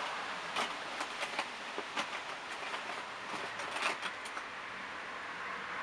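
Makeup containers and tools clicking and clattering as they are rummaged through in a makeup case. It is a quick, irregular run of clicks over a steady background hiss that stops after about four seconds.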